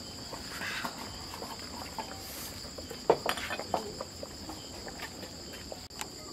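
Night insects chirring in a steady, high, even drone, with a few sharp clinks and knocks of dishes near the middle, the loudest about three seconds in.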